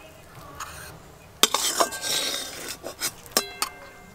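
Metal spatula scraping cooked leaf paste out of a metal kadai into a clay bowl. A sharp clink comes about a second and a half in, then scraping, then a ringing metal-on-metal clink near the end.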